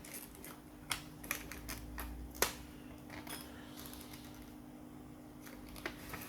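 Scattered small clicks and taps of a screwdriver and loose screws against a laptop's plastic casing during disassembly, most of them in the first couple of seconds. A steady low hum runs beneath.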